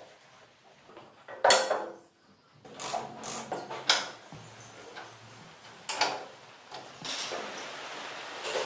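Sharp metallic knocks and clinks from steel frame parts and bolted fittings being handled while a trike's front fork and handlebar steering are fitted, a handful of separate strikes, with a steadier rattling noise near the end.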